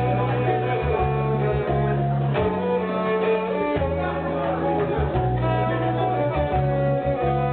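Live band music: a violin playing the melody over guitar accompaniment, with low bass notes changing about once a second.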